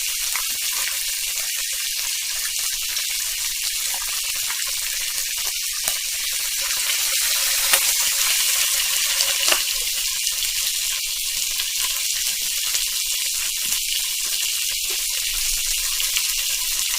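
Meat sizzling on a hot grill: a steady high hiss with faint scattered pops and crackles.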